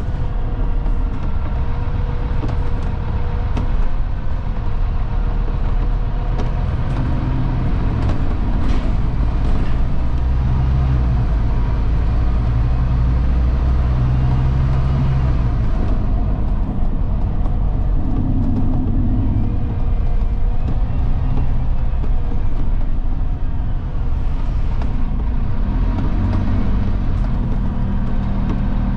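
Interior noise on the upper deck of a Scania Fencer F1 double-decker bus on the move: a steady low engine and road drone that swells and eases, with a few light clicks and rattles.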